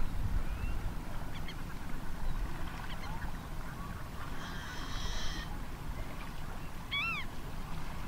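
Franklin's gull calls: scattered short nasal calls, a buzzier higher call about halfway and one clearer rising-and-falling call near the end, over a steady low background rumble.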